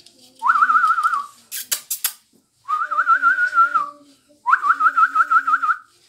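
Three warbling whistles, each about a second long, with the pitch wavering quickly up and down; a few sharp clicks come between the first and second whistle.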